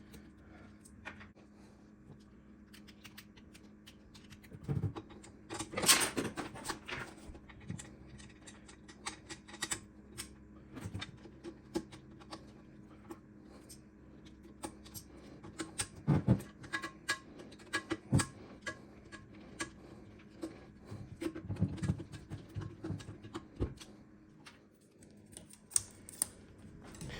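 Irregular small clicks and knocks of a screwdriver, screws and metal housing parts being handled during reassembly of a stand mixer, with a few knocks louder than the rest.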